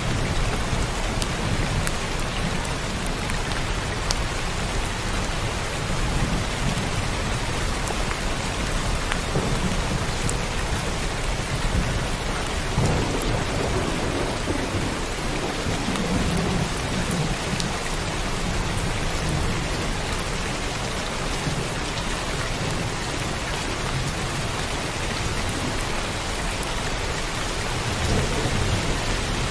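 Heavy rain pouring steadily, with low rumbles of thunder that swell and fade, the strongest about halfway through.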